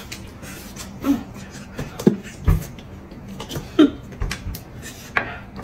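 Close-up eating sounds: a person biting and chewing a whole roast chicken, with scattered wet smacks and clicks.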